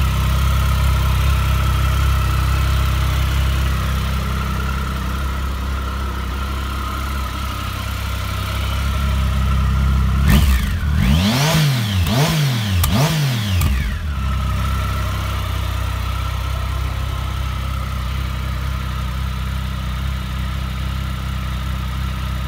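Triumph Speed Triple 1050's three-cylinder engine idling steadily. About ten seconds in the throttle is blipped several times in quick succession, the revs rising and falling, before it drops back to idle.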